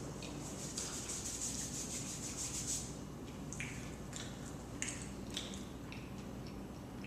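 Close-up eating sounds of someone chewing pizza: a rasping stretch of chewing for about two seconds, then a run of scattered short wet mouth clicks.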